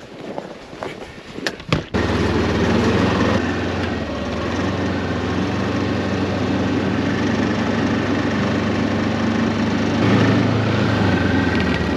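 BRP Ski-Doo Tundra 600 ACE LT snowmobile's four-stroke twin-cylinder engine running steadily under way. It sets in abruptly about two seconds in, after a few faint clicks and knocks. It eases off slightly soon after and picks up a little near the end.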